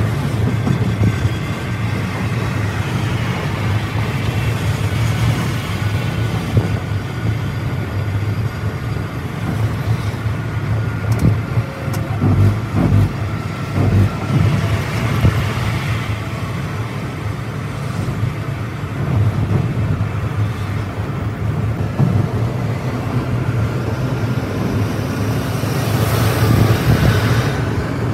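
Steady drone of a Scania multi-axle coach's engine with tyre and road noise, heard from the driver's cabin at highway speed. About twelve to fourteen seconds in come a few low thumps as the coach crosses rumble strips, and a brief rush of noise near the end.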